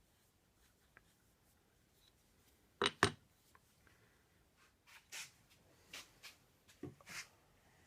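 Two sharp taps close together about three seconds in, then several short, hissy strokes of a metal low angle block plane cutting across wood.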